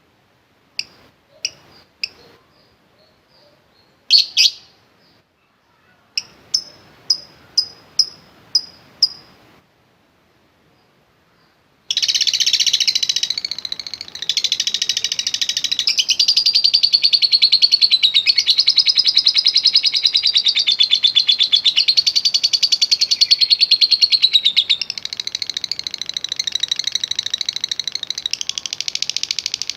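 Lovebird calling. First come sharp, separate high chips, with a quick run of about six near the middle. Then, about twelve seconds in, it breaks into a long, unbroken, rapid high chatter: the long 'ngekek' of a lovebird in full song.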